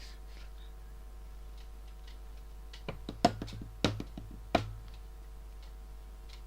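A handful of sharp knocks, about five or six over a second and a half, starting nearly three seconds in, the loudest near the start of the run, over a faint steady hum.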